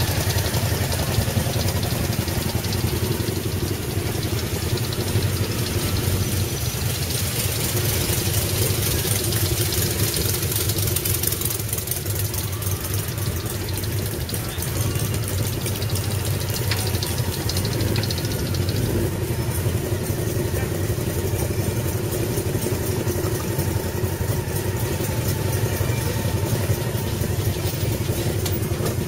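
A group of motorcycles idling together at a standstill: a steady, continuous engine rumble.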